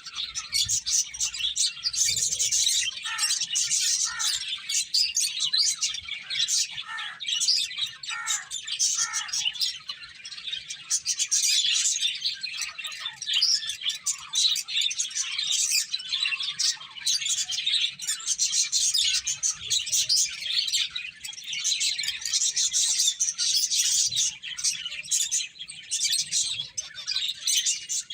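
A group of finches chirping nonstop, many short high calls overlapping, with a few lower falling notes in the first ten seconds.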